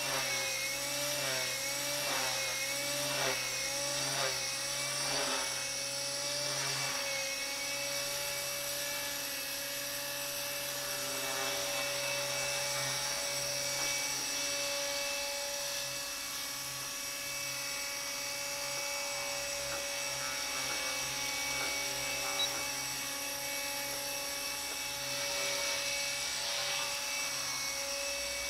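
Align T-Rex 250 electric RC helicopter in flight: the high whine of its electric motor and drivetrain with rotor buzz. The pitch wavers up and down over the first several seconds, then holds steady.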